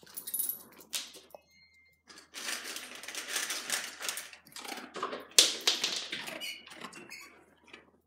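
German Shepherd crunching dry kibble from a metal bowl: an irregular run of crunches and clicks starting about two seconds in, with one sharper knock a little past halfway.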